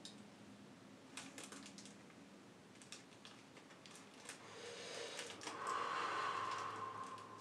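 Scattered small clicks and crinkles of a small packet being handled in the fingers. Over the last few seconds a hiss swells and becomes the loudest sound, then cuts off abruptly.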